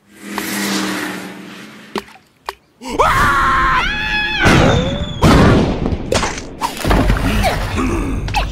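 Cartoon soundtrack: a swell of noise that fades, a couple of sharp clicks, then animated characters' wordless vocalizations sliding up and down in pitch from about three seconds in, with a low rumble near the end.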